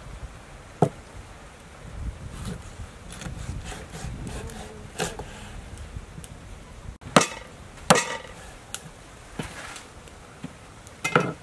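Cleaver chopping chicken on a round wooden chopping board: sharp knocks at uneven intervals, the loudest two about a second apart a little past the middle.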